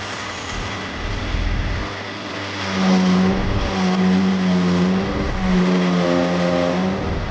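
Electric power tool motor running in repeated stretches of about a second, a steady hum over a loud hiss, typical of rust being worked off metal.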